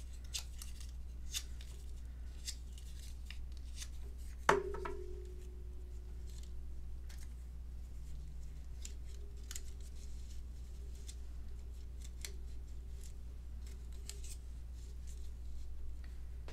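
Soft clicks and rustles of paper die-cut embellishments and glue-dot adhesive being handled and pressed onto a scrapbook page, with one sharp knock about four and a half seconds in that leaves a short ringing tone. A low steady hum runs underneath.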